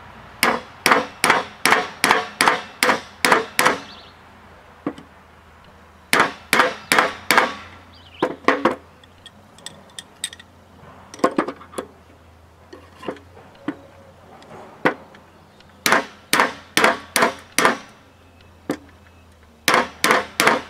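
Sharp metal-on-metal knocks from a slide-hammer bearing puller working on an air-conditioner fan motor bearing that is hung up on the shaft. The knocks come in runs of several, about two or three a second, with pauses between runs.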